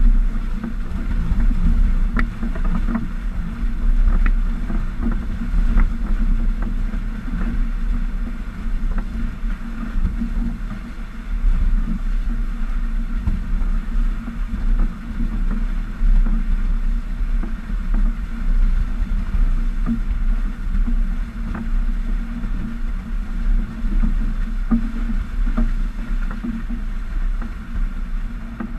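Steady rush of water along a Stiletto 27 catamaran's hull under sail at about 11 knots, heard close to the water, with a few faint clicks.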